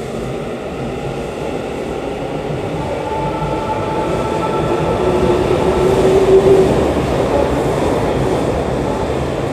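Saitama Railway 2000 series electric train starting to pull away under its Mitsubishi two-level IGBT VVVF inverter (MAP-194-15V90): a steady electric whine of several tones comes in about three seconds in over a rumble that grows louder toward the middle.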